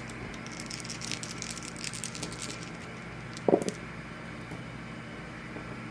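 Dice rattling and clattering on a tabletop as a handful is rolled to hit, a quick run of small clicks that dies away after about two and a half seconds. A brief voice sound comes about halfway through, over a steady low hum.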